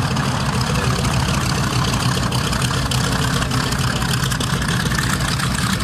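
North American B-25 Mitchell's twin Wright R-2600 radial engines running at low power as the bomber taxis, a steady engine sound with a rapid, even pulse.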